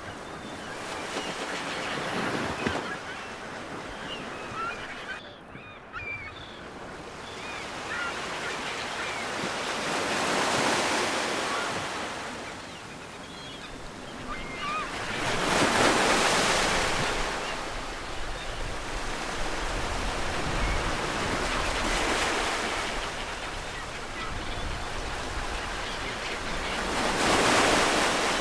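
Ocean surf: waves washing in and breaking in slow surges that swell and fade about every five to six seconds.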